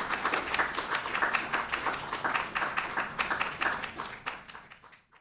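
Small audience applauding with dense hand clapping, fading out near the end.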